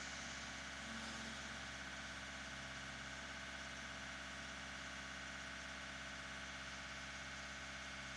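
Volkswagen Golf 6 1.6 TDI diesel engine (CAYC/CAYB) idling steadily.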